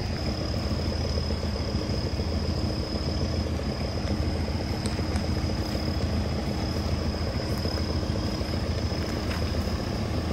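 4x4 off-road vehicle's engine idling steadily, a low even rumble, with a thin steady high whine above it and a few faint clicks.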